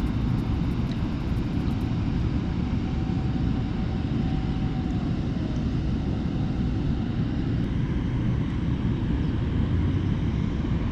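Steady low rushing of river water pouring over a large weir, an even noise without breaks.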